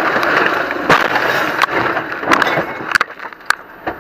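Car colliding with a truck: a loud crunching, scraping noise, then a series of sharp knocks and rattles.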